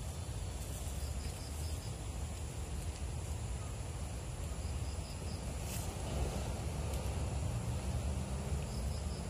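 Soft scraping and loosening of soil with a small hand tool, digging around a cassava root, over a low rumble. Faint insect chirps come in short runs of quick even pulses, with a single sharp tick about six seconds in.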